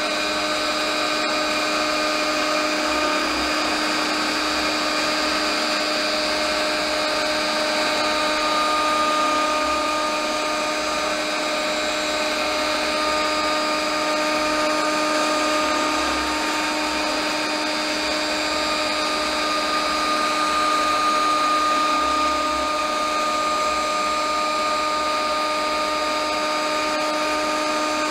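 CNC router spindle running steadily while taking a very light finishing cut in laminated hardwood. The sound is a steady whine made of several held pitches, some of which fade in and out.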